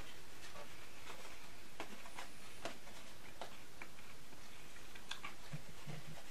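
Metal fork and spoon clicking and scraping against a black plastic frozen-dinner tray: a few faint, scattered ticks over a steady background hiss.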